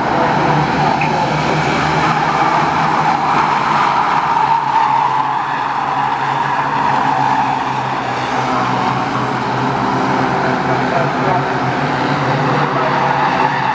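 A pack of ministox stock cars racing around an oval, many small engines running together in one loud, steady, dense drone with no single car standing out.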